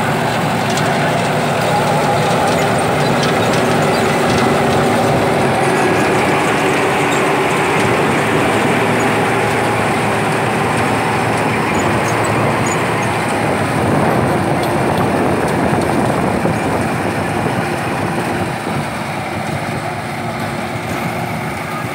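Sonalika tractor's diesel engine running under load, driving a straw reaper that cuts wheat stubble into chopped straw and blows it up a pipe into a trailer: a steady, loud mechanical din. It fades a little near the end as the rig moves off.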